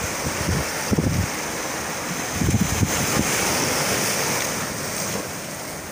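Sea waves breaking and washing over shoreline rocks, with wind buffeting the microphone. The surf surges about a second in and again around two and a half to three seconds.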